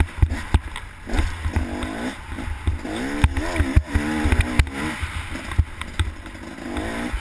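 Off-road motorcycle engine revving up and down as the rider opens and closes the throttle over rough dirt trail. Sharp knocks from the bike bumping over the ground, with wind rumbling on the helmet microphone.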